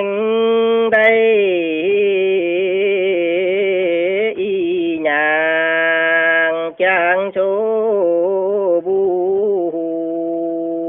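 Male voice singing a Dao Tuyển folk song in long, wavering held notes over a steady low drone, starting abruptly.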